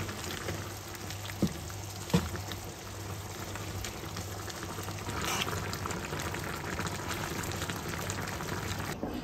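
Adobo sauce simmering and bubbling in a frying pan as a wooden spoon stirs the squid and string beans, with two sharp knocks about one and a half and two seconds in.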